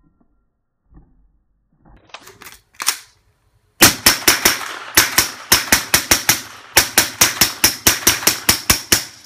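Suppressed Glock 17 9mm pistol with a SilencerCo Octane 45 HD suppressor, fired rapidly with supersonic 115-grain rounds: a string of sharp shots about three to four a second, starting about four seconds in after a few faint clicks.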